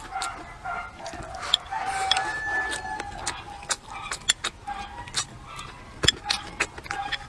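Close-up eating sounds: crunchy chewing and many sharp clicks of chopsticks and bowl. A faint, broken calling runs underneath, which may be fowl.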